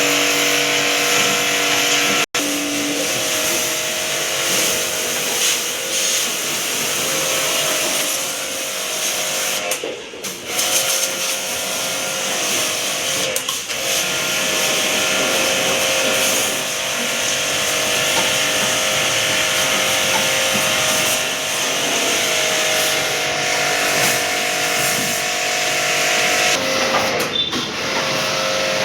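Air-conditioner cleaning machine running steadily: a motor hum under a constant hiss, dipping briefly a couple of times.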